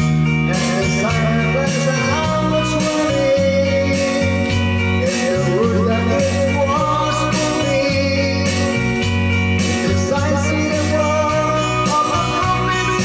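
Music: guitar-led accompaniment with a bass line and a melody line that wavers in pitch.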